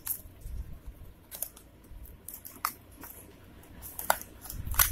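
A small cardboard box being opened by hand and a cable drawn out of it: scattered light clicks and scrapes of card flaps and plastic.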